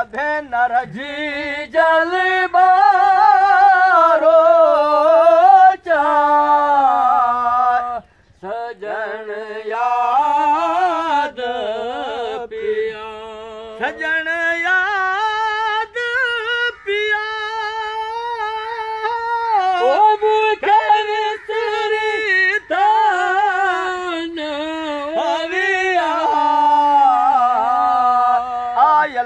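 A man singing a traditional Sindhi folk song unaccompanied, in long held, ornamented lines that bend up and down in pitch, with a brief pause for breath about eight seconds in.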